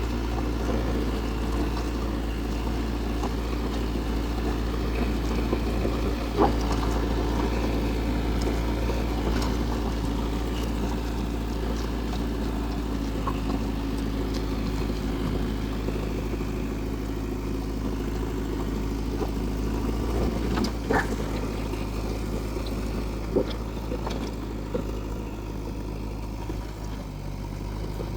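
JCB backhoe loader's diesel engine running steadily, with a few sharp knocks through it.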